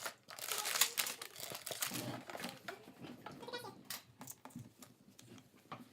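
Plastic and cardboard packaging of a Lego set crinkling and rustling in irregular bursts as it is handled, busiest in the first second.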